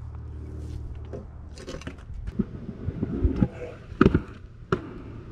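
Pro scooter clattering on concrete: a run of sharp knocks and thumps, the loudest about four seconds in, over a low steady rumble.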